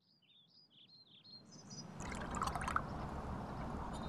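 Sound fading in from near silence with a run of faint bird chirps, then steady running, splashing water coming up about two seconds in, with a few more bird calls over it.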